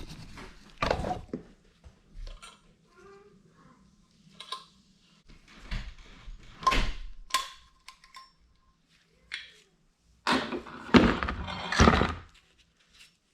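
Metal clinks, taps and knocks of a C-clamp style valve spring compressor and small valve parts being handled on a Yamaha YZ450F cylinder head, one clink ringing briefly. A louder cluster of knocks comes near the end.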